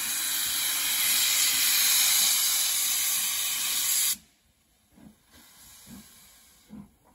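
Black 5 steam locomotive starting away with steam blasting from its open cylinder drain cocks: a loud, steady hiss that cuts off suddenly about four seconds in. After that come soft, slow exhaust chuffs about one a second as the engine gets under way.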